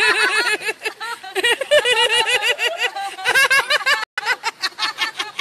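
High-pitched laughter: rapid, repeated ha-ha syllables, several a second, with a brief dropout about four seconds in.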